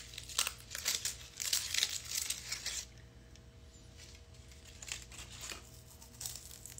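Gold foil chocolate wrapper crinkling as it is peeled off by hand, a dense crackle for about three seconds, then only a couple of faint crinkles.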